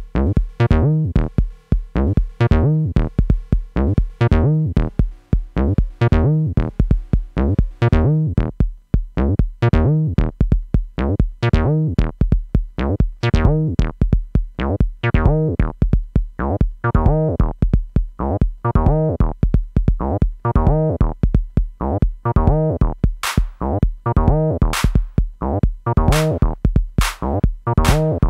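Live electronic techno: a drum machine plays a steady, evenly repeating beat under synthesizer sounds. Held synth tones fade out over the first several seconds, and a sharp, bright percussion hit joins the pattern near the end.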